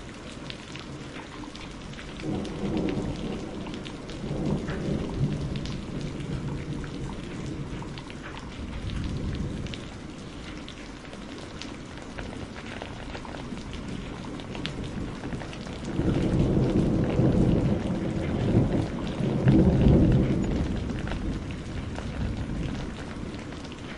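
Steady rain falling, with thunder rolling twice: a first rumble a couple of seconds in, then a louder, longer one from about two-thirds of the way through that peaks and dies away near the end.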